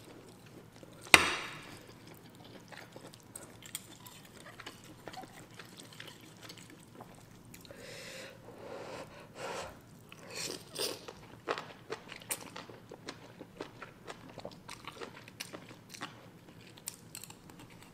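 Close-miked eating of instant noodles: chewing and wet mouth noises with many small clicks and smacks, and a few short slurps of noodles. A single sharp click about a second in is the loudest sound.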